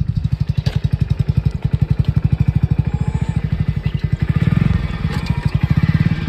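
Motorcycle engine running at low speed, a steady fast thumping beat of about a dozen pulses a second.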